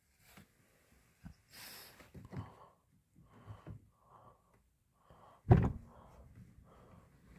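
Handling of a door-panel switch inside a 1983 Chrysler New Yorker's cabin: soft rustling and small clicks, then one loud thunk about five and a half seconds in, followed by a faint low hum.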